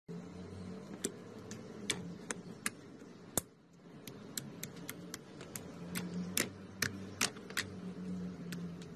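Fingers squishing clear glitter slime in a plastic tray, giving irregular sharp little pops and clicks, about two a second, over a low steady hum.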